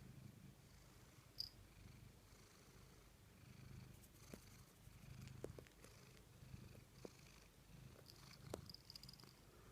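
Domestic cat purring faintly and steadily, the purr swelling and fading about once a second with each breath in and out. A few faint clicks are scattered through it.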